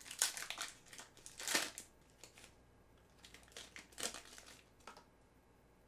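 Foil trading-card pack wrapper crinkling in several short bursts as it is torn open and the cards slid out, loudest twice in the first two seconds and again around four seconds in.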